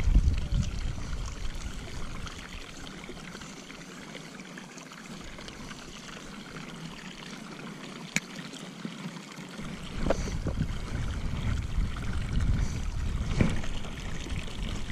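Water pouring from an inlet pipe and splashing into a pond in a steady trickle. A low rumble comes and goes underneath, and there is a single sharp click about eight seconds in.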